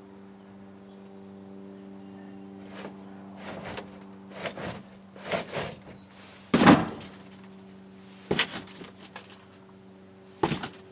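Scattered knocks and rustles among stacked plastic and foam Halloween props in a cramped storage space, about seven short ones, the loudest a thump about two-thirds of the way through, over a steady low hum.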